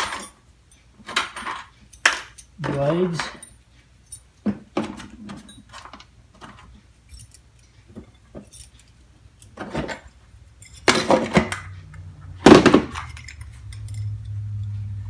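Small metal tools and loose parts clinking and jangling as they are picked up and rummaged through in a toolbox tray. There are two louder clatters about 11 and 12.5 seconds in, after which a steady low hum sets in.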